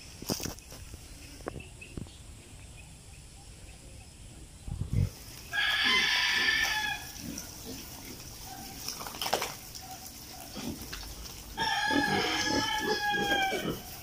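A rooster crowing twice, each crow a drawn-out call of about two seconds, the second about five seconds after the first.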